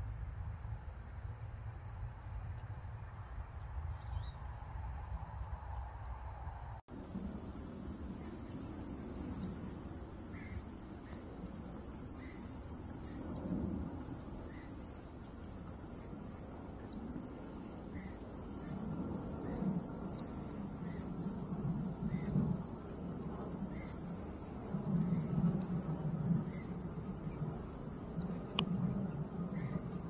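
Outdoor wildlife ambience: a steady high insect drone, with short chirps repeating roughly once a second, over a low rumble. The sound drops out briefly about seven seconds in and changes after it.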